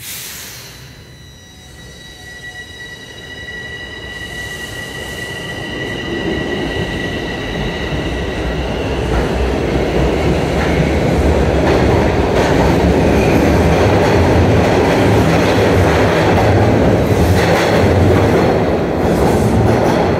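Toronto Rocket subway train pulling out of the station. A short burst of noise at the start, then a steady high motor whine for the first several seconds. The wheel rumble and clatter grows steadily louder as the cars speed up past the platform.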